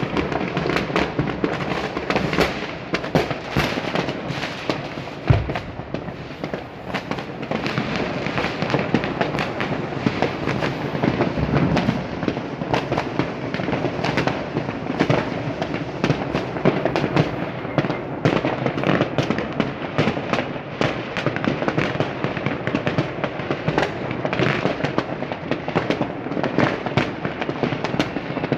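New Year's fireworks and firecrackers going off continuously, a dense overlapping barrage of bangs and crackles, with one heavier low boom about five seconds in.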